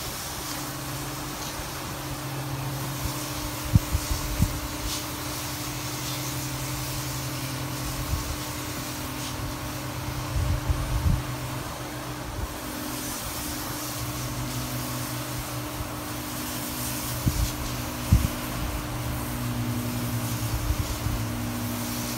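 A motor running steadily with a low hum, under a light hiss, with a few irregular low thumps standing out now and then.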